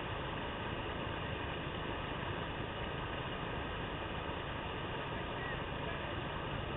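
Whitewater rapid rushing over a river drop: a steady, unbroken wash of churning water.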